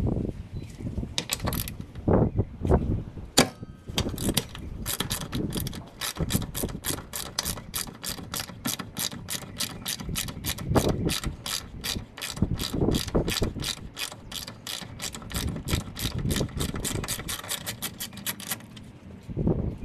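Hand socket ratchet clicking as a bracket bolt on the radiator support is loosened. A few scattered clicks and knocks come first, then a fast, even run of ratchet clicks from about four seconds in until near the end.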